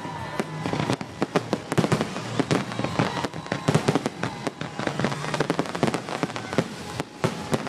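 Fireworks display: aerial shells bursting overhead in a dense, irregular run of sharp bangs and crackles.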